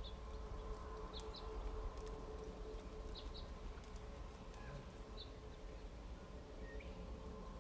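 Faint outdoor ambience: a steady low hum under a few short, high chirps, some of them in quick pairs.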